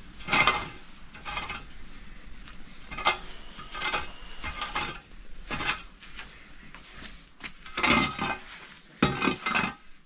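Irregular clinks and scrapes of utensils against cookware, the loudest strokes coming near the end.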